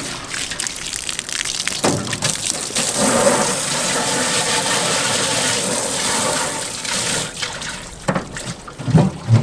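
Water from a garden hose spraying into a pig's automatic waterer to rinse it out: a steady rushing hiss with a few knocks.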